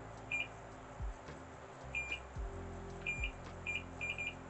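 Multimeter on continuity test giving short, high beeps, several in a row with some doubled, as its probes touch the pins of a freshly soldered PS5 HDMI port. The beep signals that two pins are connected: a solder bridge between legs that should not touch.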